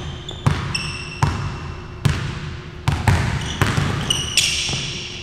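Basketball dribbled on a hardwood gym floor: sharp, echoing bounces at an uneven pace, about every half second, with short high squeaks of sneakers on the court in between.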